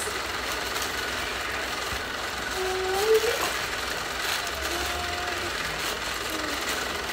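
A plastic mailer pouch rustling and crinkling as it is handled, over a steady machine-like whir with a low hum.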